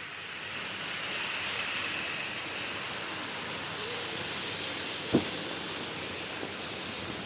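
Steady high-pitched hiss of outdoor background noise, with a sharp click about five seconds in and a brief higher burst near the end.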